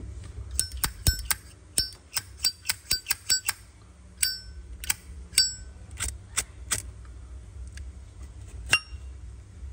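Nickel-plated Zippo lighter being handled: a quick series of sharp metal clicks and clinks, some ringing briefly, in the first seven seconds, then one more near the end.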